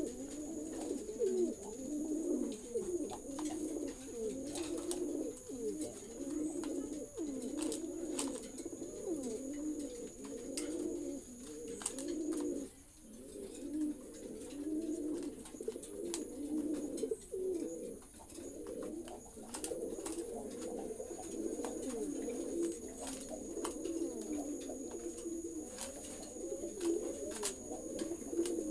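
Many caged domestic fancy pigeons cooing continuously, their low coos overlapping into a steady chorus, with a brief lull about halfway through.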